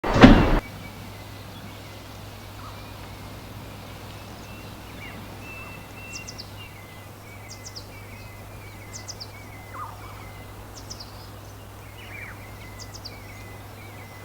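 A brief loud noise right at the start, then a steady low hum with small birds chirping on and off in short, high, falling calls.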